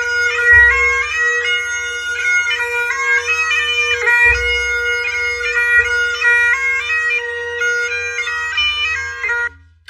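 Great Highland bagpipes playing a tune over a steady drone, stopping abruptly near the end; a piper's morning wake-up call.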